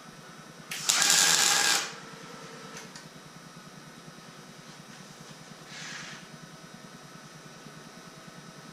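Welder tacking a 16-gauge shim onto a car frame rail: one loud burst of about a second near the start, then a faint short burst a few seconds later, over a faint steady hum.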